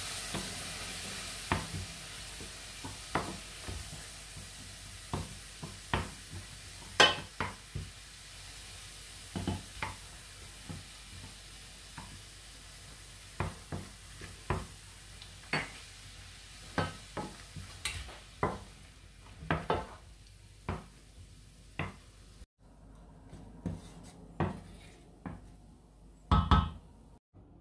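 Wooden spoon stirring and knocking against a stainless steel frying pan every second or two while a garlic and white wine sauce sizzles. The sizzle gradually fades, and near the end a few quick knocks come close together.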